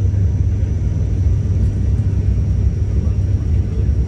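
Steady low drone of an ATR 72-600's Pratt & Whitney PW127M turboprop engines and propellers, heard inside the passenger cabin in flight.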